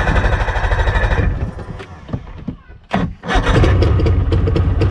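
Evinrude 50 hp two-stroke outboard being cranked. It dies away, then catches a little after three seconds in and runs steadily: a start after years of sitting, out of the water, with no priming or choke.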